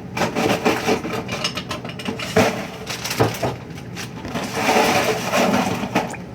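Clatter of objects being handled and knocked together: a run of short clicks and bumps, busier and denser near the end.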